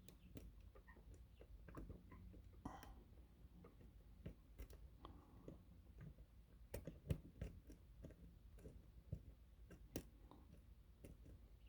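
Faint, irregular little clicks and scrapes of a lock pick working the pin tumblers of a pin-tumbler challenge lock under tension from an offset tension wrench.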